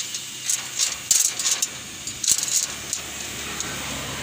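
Metallic clinking and jangling of a steel rebar cage and its tie wire being handled, in a string of short jingles over the first three seconds or so.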